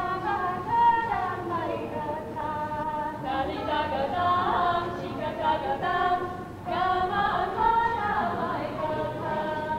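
Unaccompanied group singing of a folk song, in sung phrases with a short pause about six and a half seconds in.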